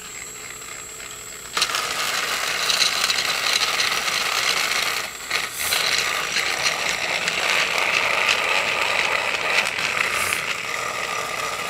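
Battery-powered Trackmaster toy train engine switched on about a second and a half in, its small motor and plastic gears then running with a steady whirring rattle as it pulls a train of wagons along plastic track.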